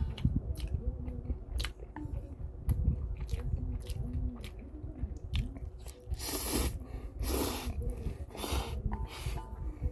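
Close-up mouth sounds of a person eating Paldo Bibimmyeon cold spicy noodles: wet chewing and lip smacks, then three noisy slurps of noodles in the second half.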